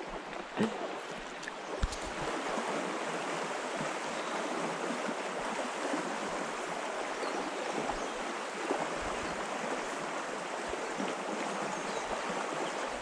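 Creek water flowing steadily over a riffle, with two brief knocks about half a second and two seconds in.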